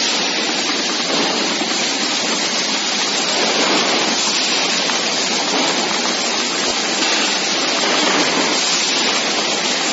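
Steady, even hiss of a carton packing line running, its chain conveyors carrying cartons along.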